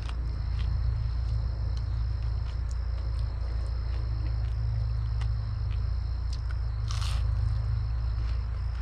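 Someone chewing and crunching crisp fried food, with small clicks throughout and one louder crunch about seven seconds in. Insects trill steadily in the background over a steady low hum.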